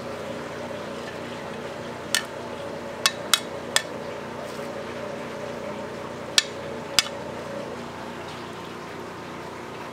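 Metal tongs clicking against a stainless steel colander and plate while shredded cabbage is served: six short sharp clicks, three of them close together around three seconds in. A steady mechanical kitchen hum runs underneath and drops slightly near the end.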